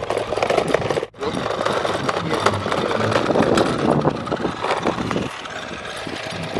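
Kick scooter wheels rolling and rattling on street pavement, a continuous gritty scraping with many small clicks, breaking off briefly about a second in.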